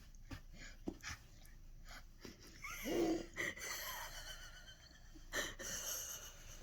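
A person making playful non-speech vocal sounds: a few light clicks in the first second, a short pitch-bending squeaky sound about three seconds in, then breathy puffs near the end.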